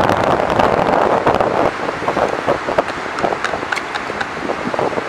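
Hands scooping and scraping wet beach sand, a run of scattered crackles and scuffs, over a steady rush of wind on the microphone that is strongest in the first second.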